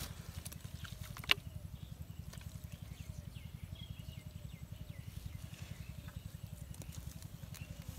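Outdoor ambience led by a steady, rapid, even low throbbing, with faint chirps above it and one sharp click a little over a second in.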